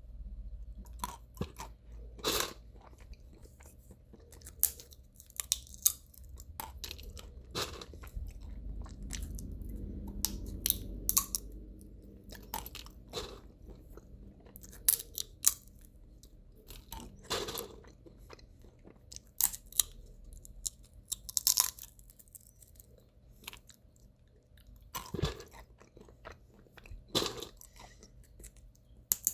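Sunflower seeds in the shell being cracked between the teeth and chewed: irregular sharp cracks and crunches, with short pauses between them.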